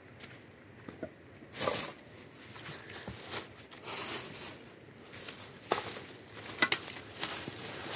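Scattered knocks, clicks and rustling at irregular intervals, the sharpest clicks coming about two-thirds of the way through.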